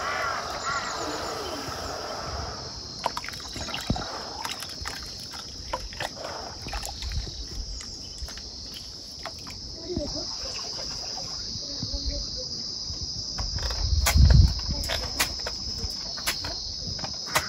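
Insects chirring in a steady high drone, with small splashes and sloshing as hands knead white clay in water in a plastic basin. A low thump around the middle.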